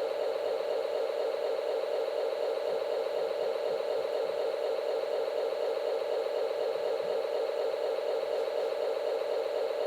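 Diesel locomotive engine sound effect from a QSI Maxx Traxx model-train sound unit, running steadily through a small speaker, its sound concentrated in the midrange with little bass.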